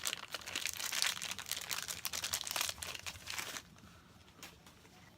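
Taped-shut shipping package crinkling and crackling as it is handled and pulled at to get it open; the crinkling stops about three and a half seconds in, leaving a few faint clicks.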